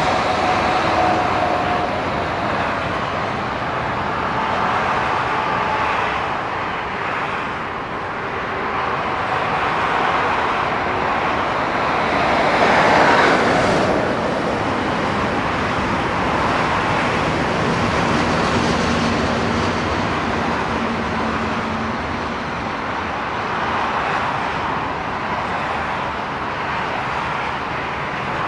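Steady rumble of electric trains running on a multi-track railway mainline, mixed with road traffic noise. It swells to a louder rush as a double-deck train passes close by about 13 seconds in.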